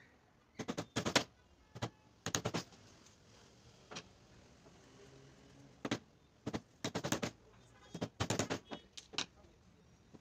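Hammer driving nails into wooden slats: quick runs of sharp taps in several groups, with short pauses between them.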